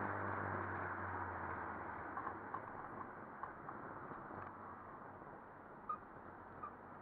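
A car driving, heard from outside the car body. Its engine hum fades about a second and a half in as the car eases off, leaving a steady rush of road and wind noise with a few faint clicks.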